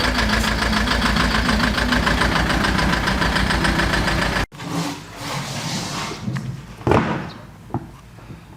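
Farm tractor engine running with a steady, fast, even beat, then stopping abruptly about halfway through. After it, quieter workshop sounds follow, with a couple of light knocks and one louder clank.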